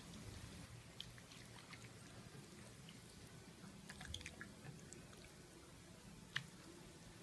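Faint wet squelches and small clicks of a hand handling pieces of marinated chicken in a glass dish, with one sharper tick near the end.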